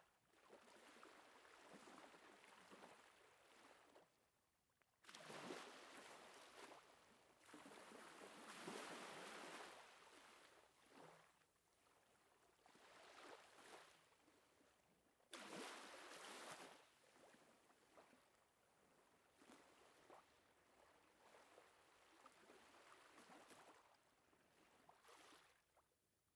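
Quiet water sounds, waves or water washing in surges that swell and fade every few seconds, two of them starting sharply about 5 and 15 seconds in.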